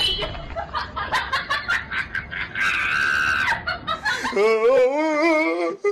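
Human voice sounds: a string of short laughing bursts, then a high held scream about two and a half seconds in, then a wavering, warbling laugh near the end.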